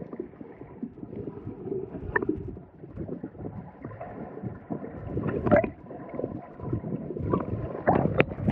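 Water sloshing and gurgling against a small boat's hull, with wind on the microphone and scattered knocks and splashes, the loudest about five and a half and eight seconds in.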